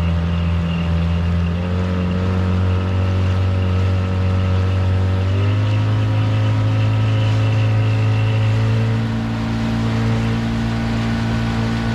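Outboard motor running an inflatable boat under way, a steady engine note that steps up in pitch twice, about a second and a half in and again about five and a half seconds in, as the throttle is opened.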